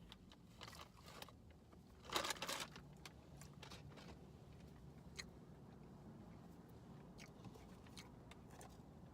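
Faint close-up chewing and mouth sounds of someone eating a sausage McMuffin, with a louder crunching burst about two seconds in and a low steady hum underneath.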